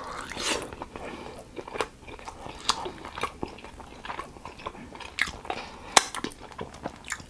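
Close-miked eating of chicken wings: biting and chewing, with irregular sharp mouth clicks, the loudest about six seconds in.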